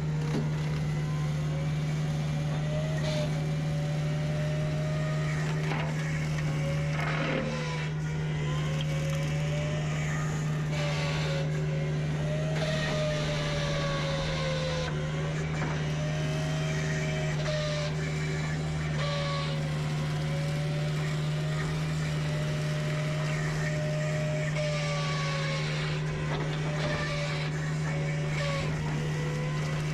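Prinoth M450e-900 compact forestry mulcher running steadily with a low drone. A higher whine sags and recovers every two to three seconds, with a few sharp knocks in between.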